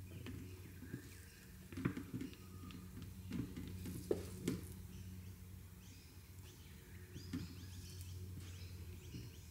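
Faint handling sounds of thick soap batter being squeezed from a plastic bag into a tube mold and pushed down with a stick: a few light knocks and taps over a steady low hum. Faint bird chirps come in over the second half.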